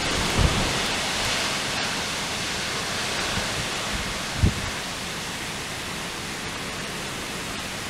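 Steady rushing of strong thunderstorm wind through corn and trees. Brief low buffets of wind hit the microphone about half a second in and again about four and a half seconds in.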